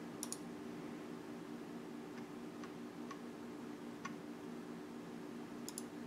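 Faint computer mouse clicks: a double click near the start, a few single clicks in the middle and another double click near the end, over a steady low hum.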